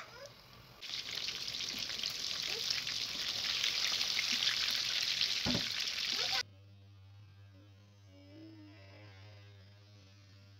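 Breaded chicken escalopes deep-frying in a pan of hot oil: a dense, crackling sizzle that starts just under a second in and cuts off suddenly about six seconds in, leaving only a faint low hum.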